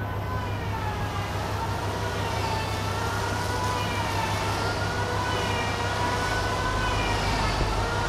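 Water spraying from a pressure hose wand onto a large wooden slab, a steady hiss over a constant low machine hum, with a whine whose pitch rises and falls slowly.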